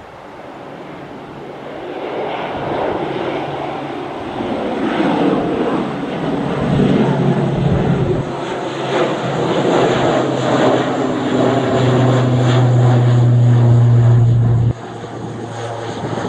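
ATR 72 twin-turboprop airliner passing low overhead, its engine and propeller drone growing steadily louder as it approaches. The drone peaks near the end and then drops off suddenly about fifteen seconds in.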